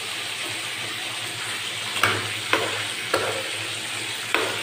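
Sardines in broth boiling hard in a metal frying pan, a steady bubbling sizzle. From about halfway through, a wooden spatula stirs and strikes the pan four times.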